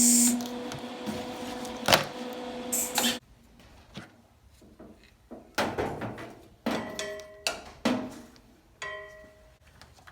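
Lincoln MIG welder arc welding aluminum: a steady hiss and crackle over a hum for about three seconds, then it cuts off suddenly, followed by a few short bursts. It is running at steel settings, which the welder thinks are too cold to grab the block properly.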